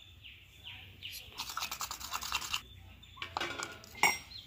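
Fast scraping and tapping of a utensil and bowl as chilli powder is emptied into a bowl of flour and worked in: a quick run of scrapes about a second and a half in, a shorter run after three seconds, and one sharp knock just after four seconds.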